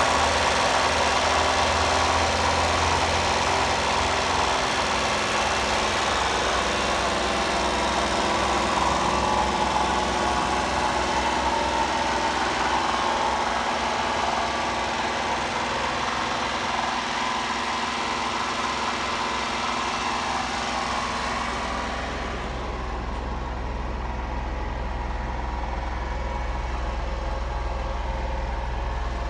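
Honda Acty kei truck's small mid-mounted engine idling steadily. Its sound turns duller about three quarters of the way through.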